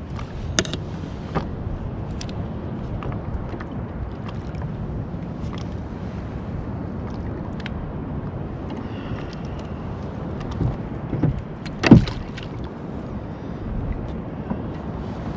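Steady water noise around a fishing kayak, with scattered small clicks and a sharp knock about twelve seconds in.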